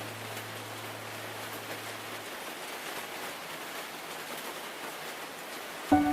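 Steady rain falling on large leaves, an even hiss of drops. A low hum underneath fades out about two seconds in, and piano notes come in just before the end.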